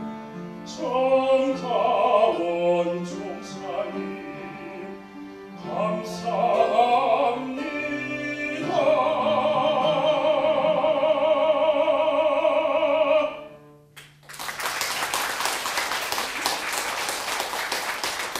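A man sings a song in Korean in a classical, operatic style over an instrumental accompaniment, ending on a long held note with vibrato. About a second after the note stops, the audience breaks into applause.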